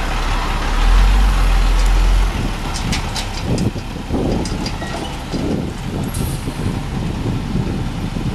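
Heavy truck engine running, swelling louder for about a second near the start, then followed by irregular crunching and rattling.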